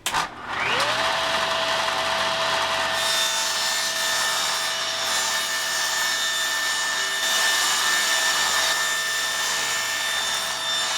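A power saw spins up over about a second to a steady high whine and cuts through a wooden panel. The cutting noise swells and eases as the board is fed through.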